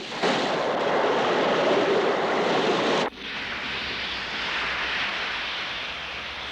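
Water rushing loudly down into a burrow, a dense, even rush that stops abruptly about three seconds in. It gives way to a steadier, quieter hiss of many sprinkler jets spraying water over the turf.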